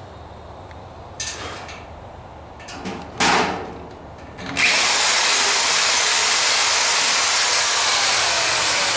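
Black & Decker electric drill boring into the cast iron leg of a cooker base: two short bursts, then running steadily from about halfway in.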